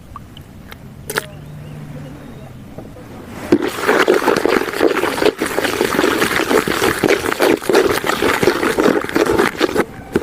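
Fishing bait being mixed by hand: water poured onto bait powder and worked in, a dense wet crackling that starts about three and a half seconds in and runs on.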